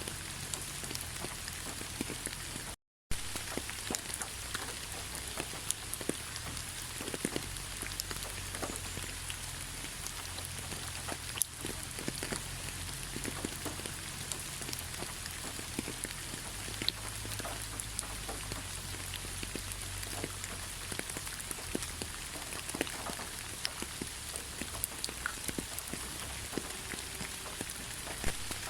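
Steady rain falling, with many individual drops heard as small ticks against an even hiss and a low rumble underneath. The sound cuts out for a moment about three seconds in.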